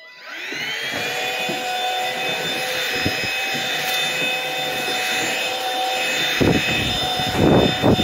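PrettyCare W400 cordless stick vacuum starting up with a rising whine, then running with a steady whine as it is pushed over a hard floor. Near the end come a few rough rattling bursts as a leaf is drawn into the brush head.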